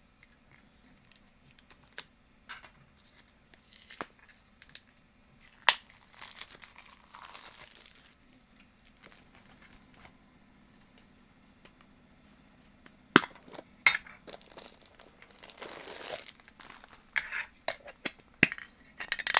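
A sealed Funko Soda collectible can being opened by hand and its contents unwrapped: scattered sharp clicks and knocks of the can with short stretches of plastic crinkling and tearing.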